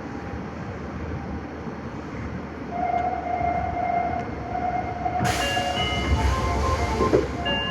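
Nagoya Higashiyama Line 5050-series subway train at a station stop. A steady tone sets in about three seconds in. Around five seconds in, a sudden loud hiss joins it, with several steady tones shifting between pitches.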